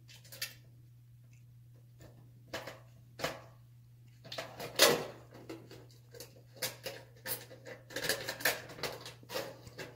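Hard clicks and knocks of small parts being handled against a shower panel, the loudest about five seconds in and a quick run of clicks in the last few seconds, over a steady low hum.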